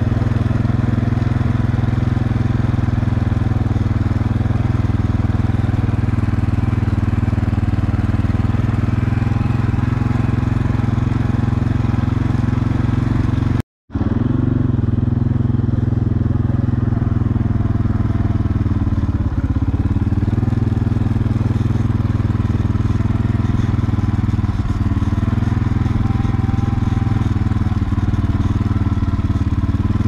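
An engine running steadily, a constant low drone with no clear changes in speed, broken by a split-second gap about fourteen seconds in.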